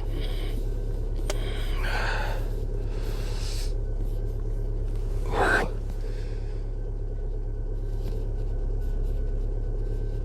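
Lada Vesta's 1.6-litre four-cylinder engine idling while warming up after a -30 °C cold start, heard as a steady hum inside the cabin. Short noises break in about two seconds in and, loudest, about five and a half seconds in.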